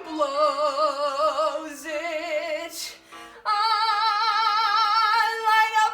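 A woman singing a Broadway show tune, holding notes with a wide vibrato. She breaks off for a breath about three seconds in, then holds one long note.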